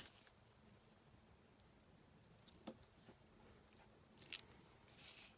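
Near silence, with a few faint taps and a soft rustle near the end from a clear acrylic stamp block being inked on an ink pad and pressed onto a card.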